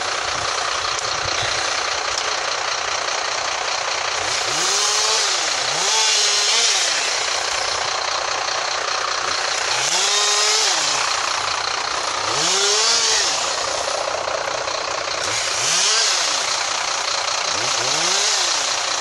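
Chainsaws revving up and down about six times, two to three seconds apart, cutting through storm-felled trees, over a steady mechanical din.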